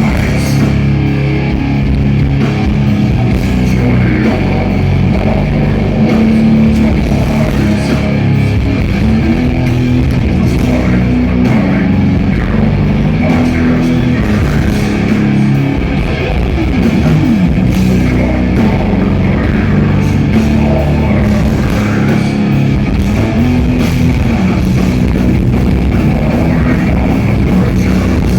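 Death metal band playing live, loud: heavily distorted guitars riffing low over a drum kit.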